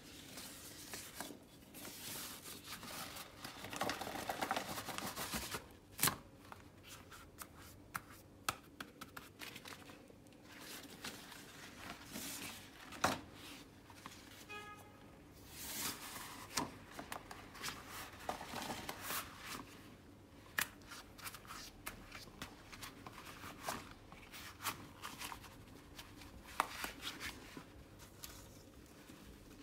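Long rubber dishwashing gloves being pulled on over bare hands: rubbery rustling and rubbing, broken by many sharp snaps and clicks, with a brief squeak about halfway through.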